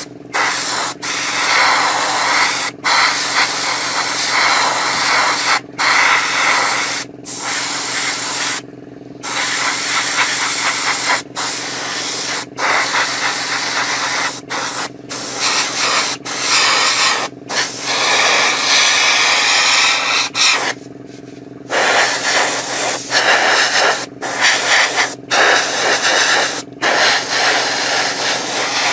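Airbrush spraying paint: a loud steady hiss that breaks off briefly every second or two as the trigger is let go, over a steady low hum.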